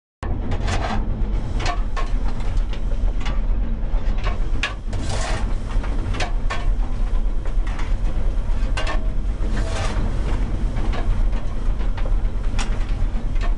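Fireman firing a running LMS Fowler Class 3F 'Jinty' 0-6-0 tank engine: the steel shovel scrapes into the coal and clangs at the firehole a dozen or so times, with a few longer scrapes, over the steady rumble of the moving locomotive on the footplate.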